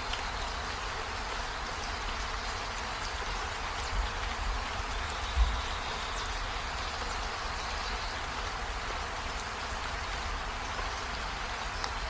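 Steady rain falling, an even hiss, over a low rumble. There is a brief low thump about four seconds in and a louder one about five and a half seconds in.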